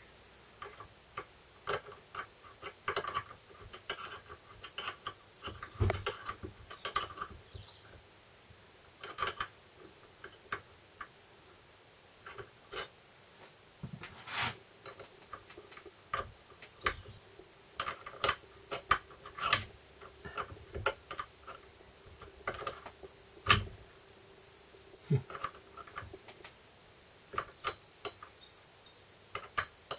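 Light, irregular metallic clicks and taps of small 2BA spanners on the nut and bolt of a transfer-box output shaft's oil thrower clamp, as the clamp is tightened by hand.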